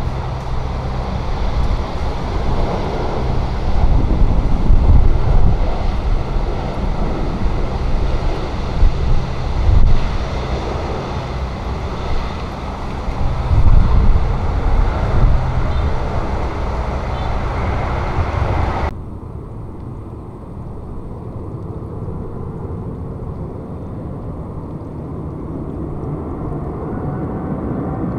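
Airbus A350-1000's Rolls-Royce Trent XWB jet engines rumbling low and loud on the landing roll, swelling several times. About two-thirds through the sound cuts off abruptly to a quieter, steady distant noise with a faint rising engine whine near the end from an Airbus A380 coming in to land.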